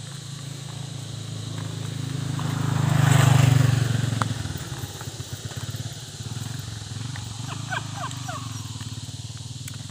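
A motorcycle passes by, growing louder to a peak about three seconds in and then fading as it rides away.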